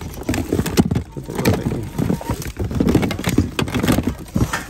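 Hands rummaging through a plastic bin of dolls and toys: plastic figures knocking together and plastic wrap rustling, in quick, irregular clatters.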